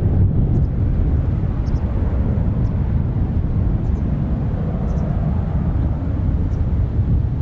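Jet airliner engines giving a steady, deep rumble.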